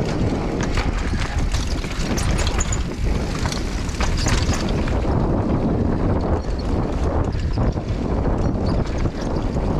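Downhill mountain bike ridden fast down a rocky dirt trail: wind rushing over the bike-mounted camera's microphone, with tyre noise and the bike's chain and frame rattling over rocks and roots. The rattling is busiest in the first half, then settles into a steadier rush of wind and tyres on smoother dirt.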